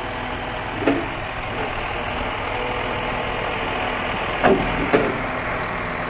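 Scania P360 crane truck's diesel engine running steadily at idle while the crane hydraulics are worked, with three sharp metallic clunks: one about a second in and two close together near the end.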